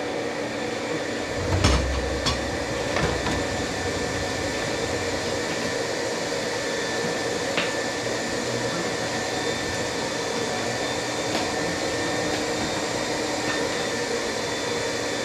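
A steady machine whir with a few fixed tones, like a fan or blower, runs throughout. Over it come a few clicks and knocks, the heaviest a low thump about one and a half seconds in.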